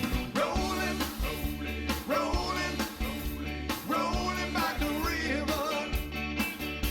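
Background music: an upbeat rock song with drums, bass, guitar and singing over a steady beat.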